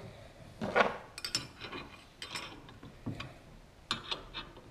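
Light metal clicks and knocks, about eight of them spread irregularly, as the clamp die is set into a rotary draw mandrel tube bender.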